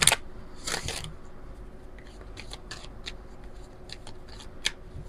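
A deck of oracle cards being shuffled by hand: two brief stretches of cards sliding and rustling at the start and just before a second in, then light card snaps and taps scattered through, one sharper snap near the end.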